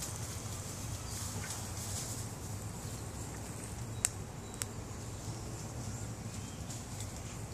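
Outdoor woodland background: a steady low hum under a faint high hiss, with two sharp clicks about four seconds in, half a second apart.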